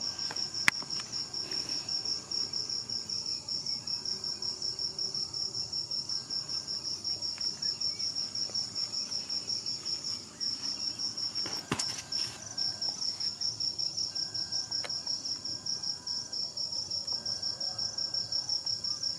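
Crickets chirping in a steady high pulsing trill, about four pulses a second, with a sharp click about a second in and another near the middle.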